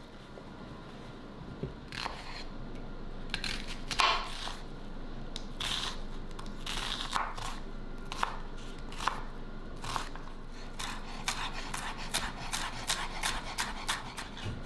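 Vegetables being cut: a series of crisp cutting strokes, spaced irregularly at first, then a quick run of about three a second near the end.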